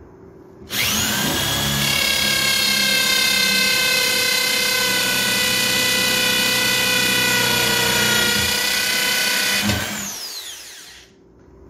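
Corded electric drill boring into a thick wooden box: the motor whines up to speed just under a second in, runs steadily under load for about nine seconds, then is released and winds down with a falling whine.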